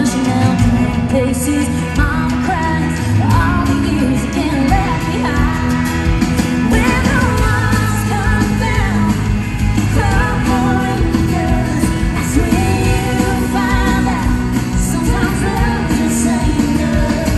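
Live country band performance: a woman singing lead over acoustic guitar, electric guitar, bass and drums.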